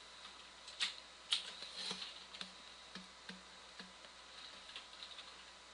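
Light, irregular clicking at a computer, with the sharpest clicks in the first two seconds and fainter taps spread through the rest.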